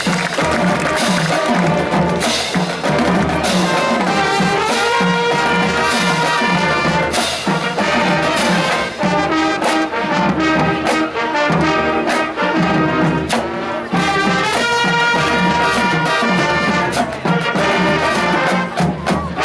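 School marching band playing: brass section, trumpets and trombones, over a steady drumbeat.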